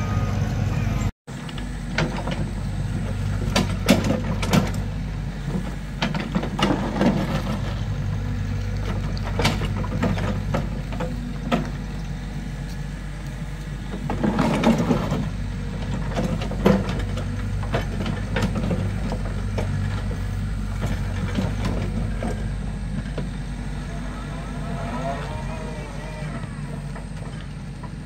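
Doosan DX55W wheeled excavator's diesel engine running steadily while it works, with scattered clanks and knocks from the bucket and stones. The loudest clatter comes about fourteen seconds in.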